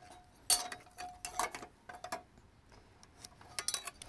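Metal speed square clinking and sliding against a pre-primed 12-gauge steel bulkhead foundation plate as the plate is marked to length: several light clinks spread through, some with a short faint ring.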